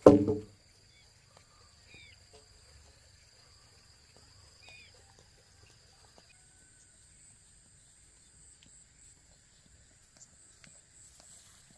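Countryside ambience: steady high-pitched insect buzzing with a second insect tone that stops about halfway, a couple of short bird chirps, and faint light footsteps on grass. A brief loud burst sounds right at the start.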